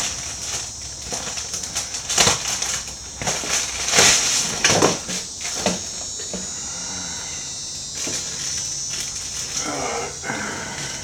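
Hands handling a fuel pump assembly and tools on a workbench: scattered clicks and knocks of plastic and metal parts, the loudest about two and four seconds in, over a steady high hiss.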